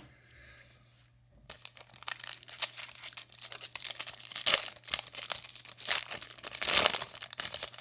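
Wrapper of a Topps Match Attax trading card pack being torn open and crinkled by hand, starting about a second and a half in, with dense sharp crackles.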